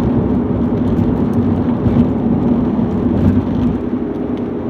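Steady road and engine noise inside a moving vehicle's cabin: a low rumble of tyres on the road with a constant hum.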